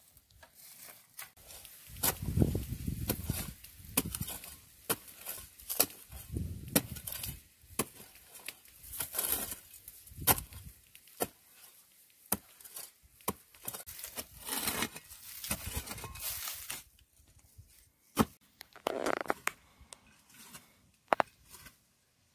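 A long-handled digging tool chopping and scraping into dry, hard earth: irregular sharp strikes with crunching and crumbling soil between them.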